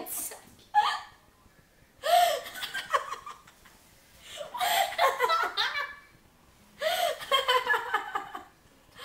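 A girl laughing uncontrollably in four long fits, with gasps and quiet gaps of about a second between them.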